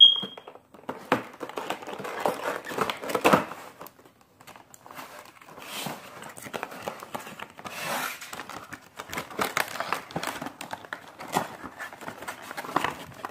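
Cardboard box of a diecast model airliner being opened and handled by hand: irregular rustling, scraping and crinkling of cardboard and plastic packaging. A short high ping sounds right at the start.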